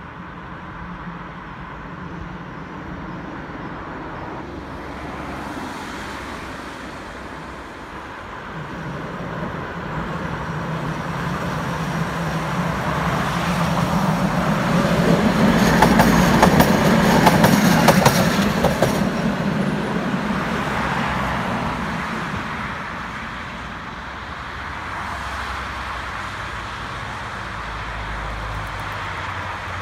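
Two-car tram approaching and passing close by. Its running noise builds to a peak with a quick run of clicks from the wheels over the rail joints, then fades, with road traffic running underneath.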